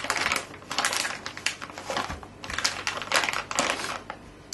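Plastic vacuum-seal bag crinkling and crackling in irregular bursts as it is handled around a paper-towel-wrapped steak.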